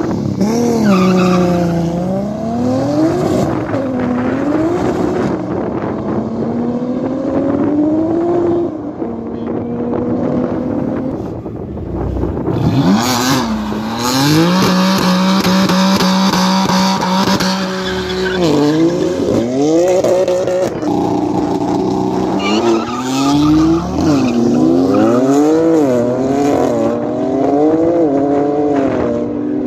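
BMW M3 straight-six engines revving up and down again and again at a drag strip start line. From about 13 seconds in, an engine is held steady at high revs for some five seconds with loud tyre squeal: a burnout to heat the rear tyres. More rev sweeps follow to the end.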